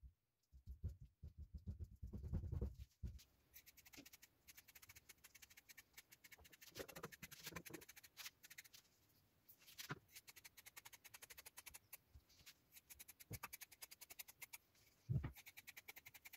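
Faint snipping of scissors cutting resin-soaked carbon fibre cloth: a long run of small clicks and crisp rustles. At the start there are a few soft thuds of hands pressing the cloth, and one louder thud comes near the end.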